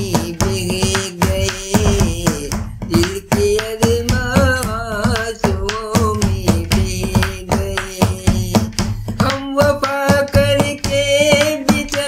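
A voice singing a Hindi film song, its melody line wavering and ornamented, over steady drum beats.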